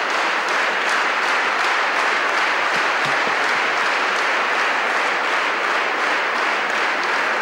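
Large crowd applauding steadily, a dense even clapping.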